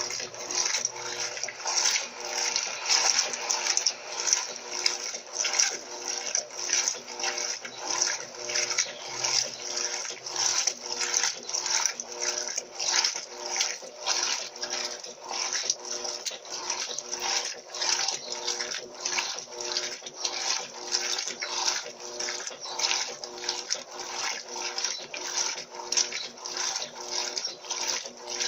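Electrolux Turbo LT12B top-loading washing machine agitating a load: water and wet cloth slosh in rhythmic swishes, a few a second, over a faint steady motor hum.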